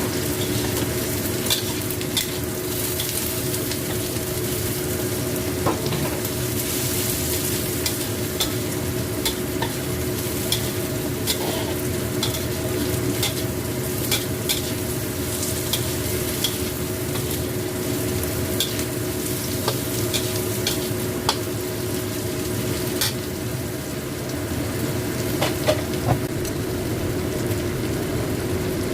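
Stir-frying: food sizzling steadily in hot oil in a pan while a spatula stirs it, clicking and scraping against the pan about once a second. A steady low hum runs underneath.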